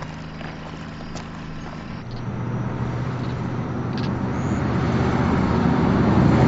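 Motor vehicle running: a steady low hum, then a louder rumble from about two seconds in that keeps rising.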